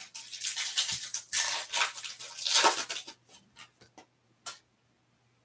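Foil wrapper of a Topps Stadium Club Chrome hobby pack being torn open and crumpled, a dense crackling rustle for about three seconds. A few soft ticks and rustles follow as the cards are slid out.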